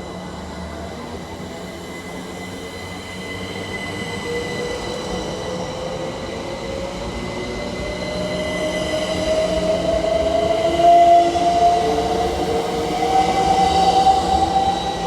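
A train running on the rails and getting louder as it nears. From about four seconds in, a whine climbs steadily in pitch, as a train's drive does when it picks up speed.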